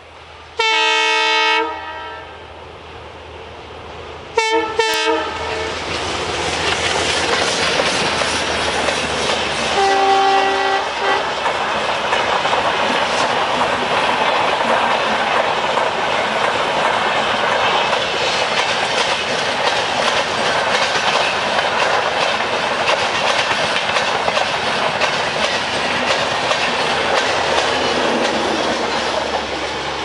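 WDM3D diesel locomotive sounding its sharp horn: one long blast about a second in, two short blasts a few seconds later, and a fainter blast about ten seconds in. After that comes steady wheel and rail noise as the long train of passenger coaches runs past.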